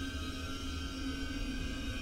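Dark horror-film score drone: a steady, low sustained rumble with held eerie tones above it.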